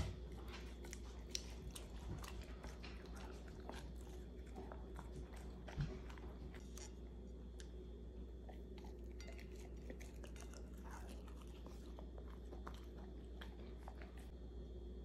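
German shepherd chewing a piece of rice-and-nori dog sushi taken from chopsticks: faint wet chewing and smacking clicks, thickest in the first half and thinning out later, with one louder click about six seconds in.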